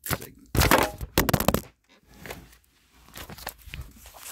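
Crinkling and rubbing of a cardboard Zippo lighter box being handled and opened close to the microphone. Three loud bursts come in the first second and a half, then quieter crackling rustles.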